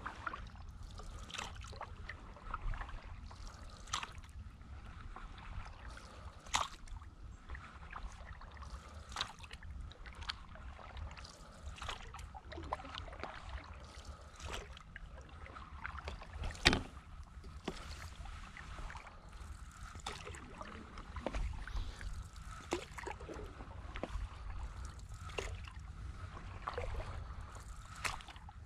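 Stand-up paddleboard paddle dipping and pulling through calm lake water, with small splashes and drips at each stroke, about every one to two seconds. One sharper knock or splash about halfway through is the loudest moment.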